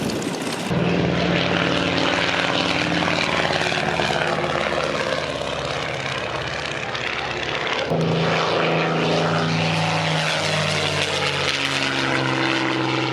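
Propeller aircraft piston engine running steadily, with abrupt changes in the sound about a second in and again about eight seconds in.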